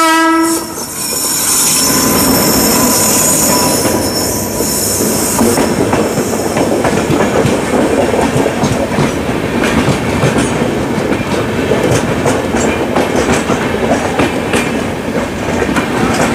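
Durg–Udhampur Express passenger train running past close by. A train horn blast cuts off within the first second, and a high hiss fades after about five seconds. Then comes a steady rumble with the clickety-clack of wheels over rail joints as the coaches go by.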